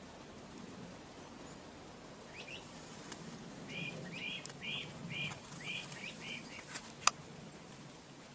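A bird calling a quick series of about seven short, high chirping notes, about three a second. Near the end there is a single sharp click.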